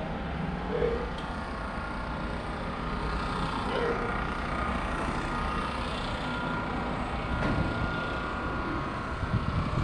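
Steady mechanical background hum, like a running engine or motor, with a few faint, distant voices.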